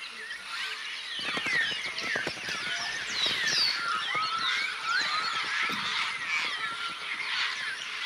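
A flock of African grey parrots calling together: many overlapping whistles and squawks that rise and fall in pitch, with a crackle of short clicks underneath from about a second in.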